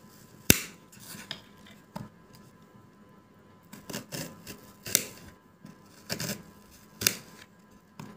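A kitchen knife slicing an onion on a ceramic plate: about half a dozen sharp clicks as the blade cuts through and strikes the plate, unevenly spaced, the loudest about half a second in.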